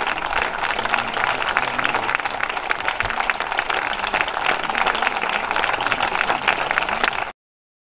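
Concert audience applauding, a dense steady clapping that cuts off suddenly near the end.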